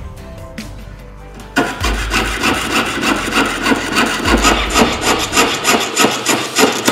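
Jeweler's piercing saw cutting through a thin metal plate in quick, even strokes, about three a second, starting about a second and a half in.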